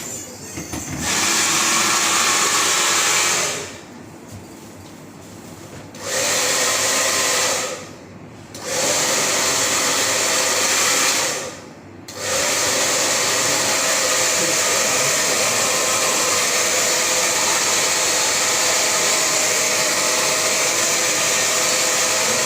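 Chaoba 2000-watt hair dryer blowing with a steady rushing whoosh and a faint hum, switched on and off. It runs for a couple of seconds, stops for about two seconds, and cuts out twice more briefly. It then runs steadily through the last ten seconds.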